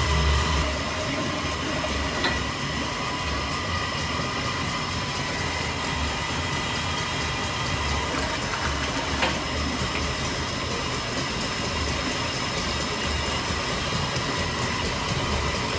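Steam beam pumping engine running: a steady mechanical sound with a low, unevenly pulsing beat and an occasional light click.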